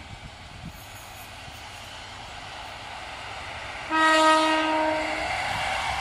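EP07 electric locomotive approaching, its running noise rising steadily. About four seconds in it sounds its horn once, a single steady tone lasting just over a second. The noise of the train grows broader and louder after the horn.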